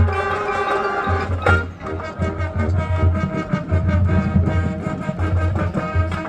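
High school marching band playing its competition show: brass and woodwinds holding sustained chords over a pulsing low bass line.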